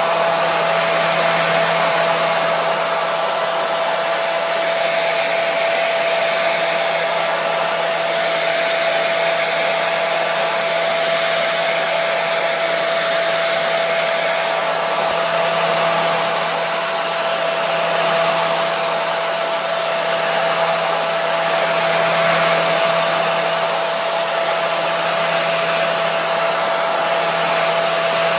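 Hair dryer running continuously: a steady rush of blown air with a constant motor hum that holds one pitch throughout.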